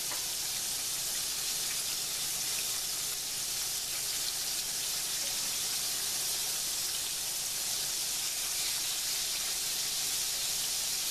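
Flour-battered bacon strips sizzling steadily as they fry in hot oil.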